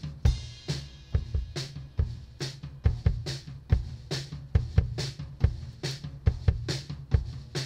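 Soloed kick-drum microphone track of a drum kit looping back through a channel-strip compressor: a steady beat of kick hits with snare and cymbal bleed from the rest of the kit picked up by the same mic. The compression makes it sound a lot punchier.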